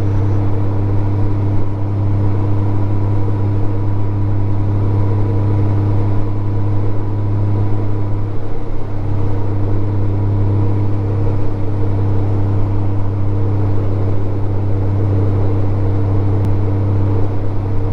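Honda Gold Wing GL1500 motorcycle's flat-six engine pulling steadily up a mountain road: a constant low hum with no change in pitch.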